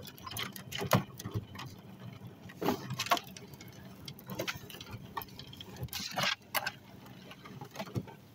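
Hoover spin sweeper being pushed fast over a concrete driveway, its wheels and brush housing rattling with irregular clicks and knocks. The brush roll is jammed with clumps of grass clippings, so the bristles aren't spinning.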